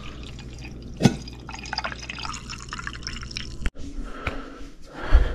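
Tea being poured from a kettle into a ceramic mug, with a single knock about a second in.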